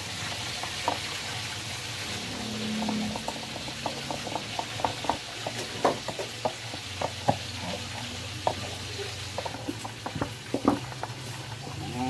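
Scattered light clicks and knocks from hands working on a Samsung washing machine's plastic pulsator, over a steady hiss.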